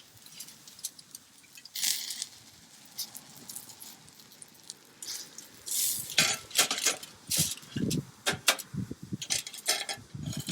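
Light clinks and clatter of metal cookware and utensils being handled. They are sparse at first and become busier, with some duller knocks, in the second half.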